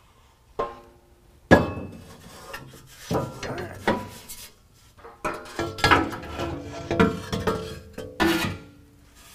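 Section of factory exhaust pipe clanking and rattling as it is wiggled loose from its rubber hanger and pulled out by hand: a string of irregular metallic knocks, several of them ringing.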